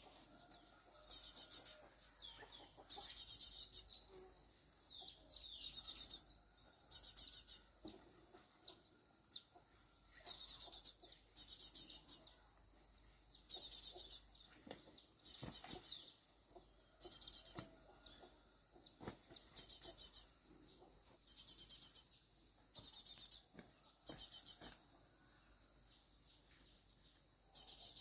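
Outdoor countryside sounds: a high-pitched, rapidly pulsed chirp repeating about every second and a half, with a faint rising bird whistle early on and a steady high insect drone near the end.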